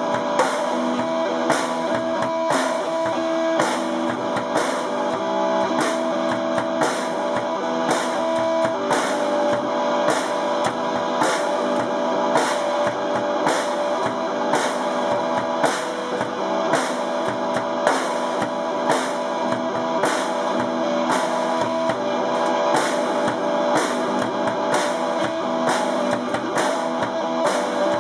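A guitar and a drum kit played together live: held guitar notes over a steady drum beat with regular sharp hits.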